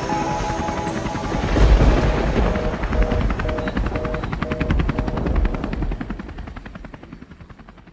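Channel intro sting: music with a low boom about two seconds in, then a rapid, even chopping sound like helicopter rotor blades under short repeated musical notes, fading out near the end.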